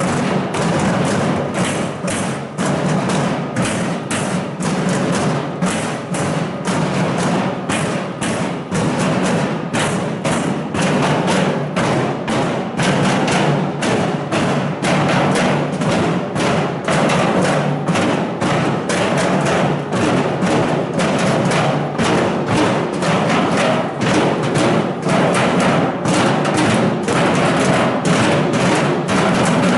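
A crowd of protesters drumming and banging together: a loud, dense, uneven clatter of many knocks a second that goes on without a break.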